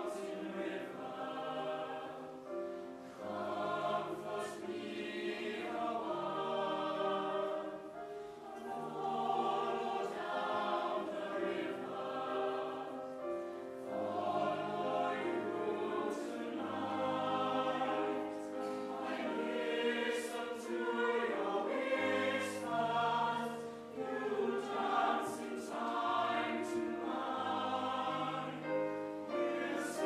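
Young mixed-voice choir singing in parts, with held notes sung by high and low voices together.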